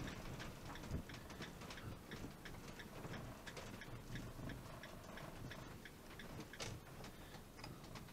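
Faint, irregular clicking and rattling from a motorhome cab as it rolls slowly over a rough gravel lot, several light ticks a second over a low rumble from the engine and road.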